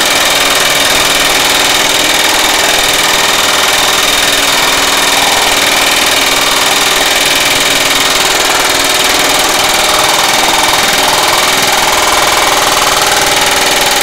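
Power hammer fitted with a planishing die, rapidly and continuously striking a curved sheet-metal panel as a steady fast rattle of blows. It is running in its spring-cushioned mode, with a leaf spring on the ram.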